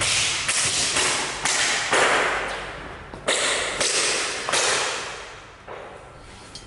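A series of about eight sharp swishing, rustling handling noises, each starting suddenly and fading within about half a second. The loudest comes about two seconds in, and they grow fainter toward the end.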